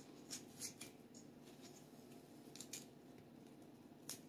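Faint, crisp snicks of a kitchen knife slicing through a raw onion held in the hand: a quick run of cuts in the first second, two more a little past halfway, and one near the end.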